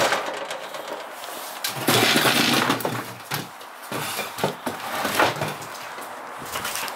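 Glass porch door being handled and shut: a run of clicks and knocks, with a louder rushing rattle lasting about a second, roughly two seconds in.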